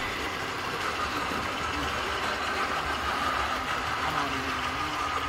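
Model passenger train rolling past on the layout track: steady running noise of wheels on rail with a faint steady whine.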